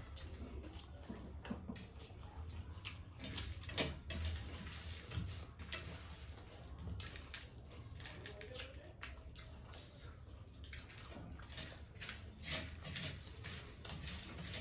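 Close-up chewing of a mouthful of jhal muri (spiced puffed rice mix): irregular crunches and wet mouth clicks.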